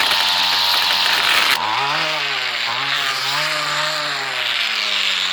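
Homelite two-stroke string trimmer with zip ties in place of line, running at high revs into thick brush with a loud hiss of cutting. About a second and a half in the hiss stops suddenly and the engine drops in speed, then its revs rise and fall. This is the sign of the zip-tie ends breaking off.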